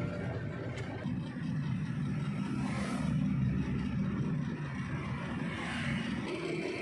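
Flatbed truck driving on a city road, heard from inside the cab: a steady low engine rumble mixed with road noise.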